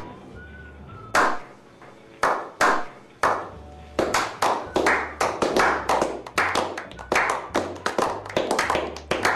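A small group of men slow-clapping: a few single claps about a second apart, then more hands join from about four seconds in and the clapping grows faster and denser.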